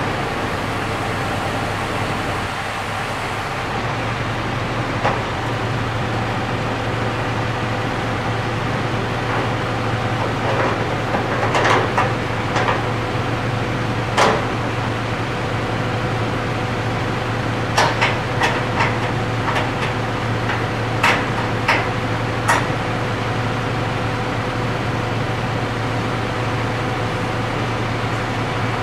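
A crane's engine running steadily with a constant low hum. Over it come about a dozen short, sharp knocks and clicks, bunched between about five and twenty-three seconds in.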